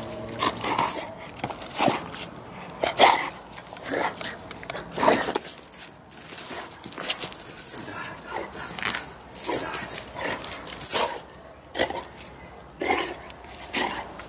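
A dog giving short barks and yelps while it is played with, one roughly every second.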